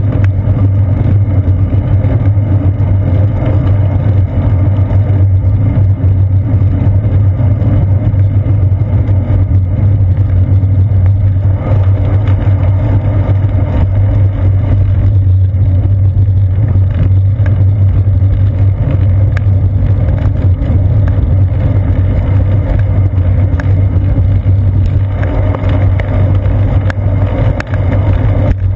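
Loud, steady low rumble of wind and road vibration picked up by a seat-post-mounted GoPro Hero 2 on a bicycle rolling along a paved path.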